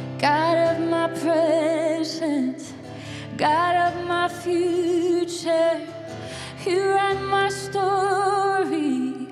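A woman singing a worship song over acoustic guitar, in phrases of one to two seconds with short breaths between, holding notes with a wavering vibrato.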